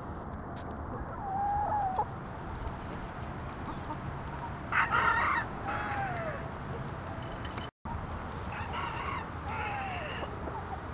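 Bantam rooster crowing several times while wearing a no-crow collar, a velcro strap around the neck meant to keep the crow quiet. The loudest crow comes about five seconds in, and another near the end.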